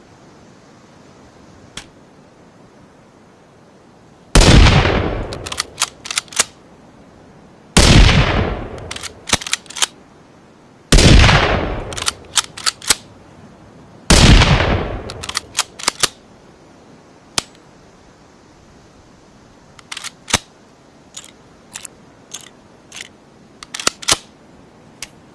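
Four rifle shots about three seconds apart, each with a short fading echo and followed by a few quick mechanical clicks. Near the end comes a run of quieter clicks.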